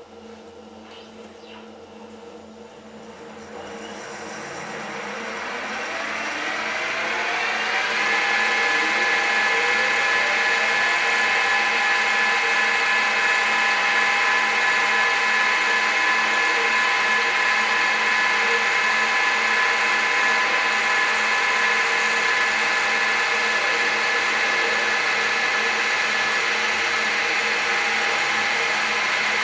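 TOS FN20 milling machine running under CNC control: the machine sound rises in pitch and loudness over about five seconds, then holds as a steady whine with several tones while the end mill cuts the flange stock.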